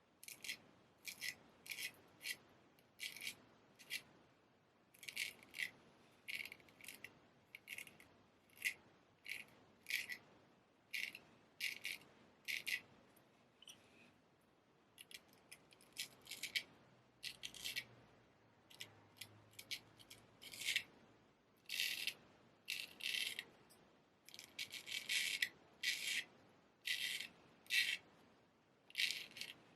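Straight razor edge scraping in short, crisp strokes, about one or two a second, with a few brief pauses.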